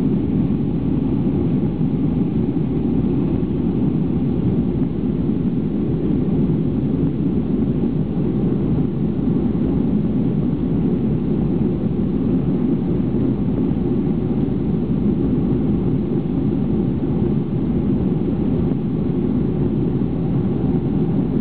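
Cabin noise of a Boeing 737-500 climbing after takeoff: its CFM56-3 turbofan engines and the rushing airflow make a steady, even low rumble with no change in pitch or level.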